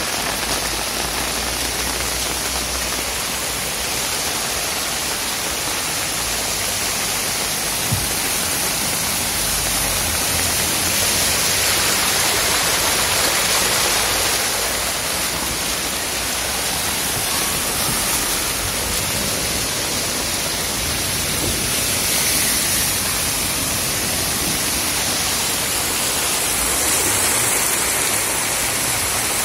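Heavy downpour and muddy floodwater rushing across a street: a steady, dense hiss of rain and running water that swells louder around the middle and again near the end, with one short knock about a third of the way in.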